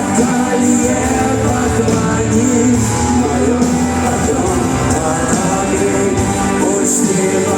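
Live rock band playing loudly with singing, heard through an amateur recording in a large arena hall.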